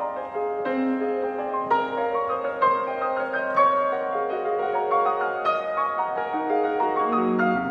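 Yamaha grand piano played solo: a slow passage of sustained notes ringing on over one another, mostly in the middle register, with a new note or chord struck about once a second.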